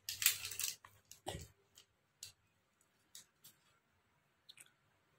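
Plastic drink-powder sachet rustling as it is picked up and handled, with a scatter of light clicks and taps. The loudest rustle comes right at the start, a dull knock follows about a second and a half in, and only a few faint ticks come later.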